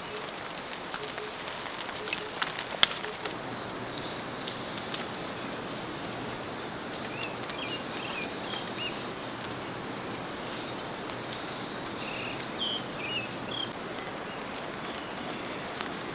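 Kindling crackling and popping in a metal fire box for the first few seconds, with one sharp snap, then a steady rush of stream water with scattered short bird chirps.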